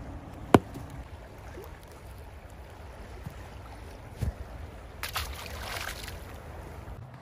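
A small tautog splashing into the canal water about five seconds in, a short spraying splash as the undersized fish is let go. Before it there is a sharp click half a second in and a low thump about four seconds in, over a steady low rumble of wind and water.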